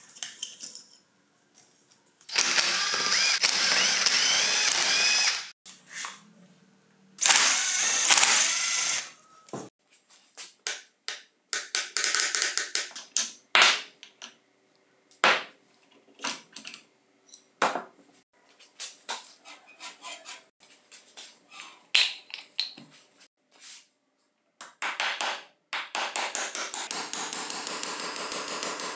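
Tools working on the cast-metal housing of an old chisel mortiser during disassembly: many short metal clicks and knocks as parts are pried and handled, broken by three spells of a few seconds each of a power tool running, the last one near the end.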